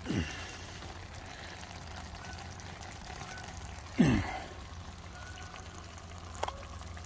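Chili simmering and bubbling gently in a cast-iron Dutch oven over charcoal briquettes. A brief falling rumble comes right at the start and a louder one about four seconds in.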